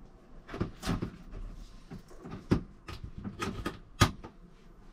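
Frosted plastic folding shower-door panels being pushed and folded along their rail, making a series of clicks and knocks. The sharpest knocks come about two and a half seconds in and just after four seconds.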